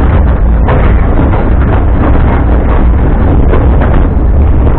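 Loud wind buffeting the microphone on an open-sided narrow-gauge railway passenger car, over the steady rumble of the moving train.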